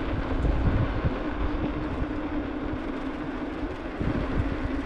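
Mountain bike rolling down asphalt: a steady hum from the rolling bike runs under uneven wind buffeting on the microphone.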